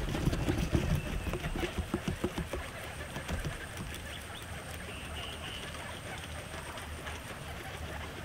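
Guinea pig chewing fresh grass: a rapid run of small crunching strokes that dies away after about three seconds, leaving a faint steady hum.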